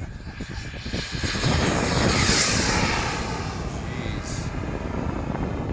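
Giant-scale RC A-10 model jet's turbine making a fast pass: a rushing jet roar with a high whine that swells to its loudest about two seconds in, then eases and drops in pitch as the jet goes away.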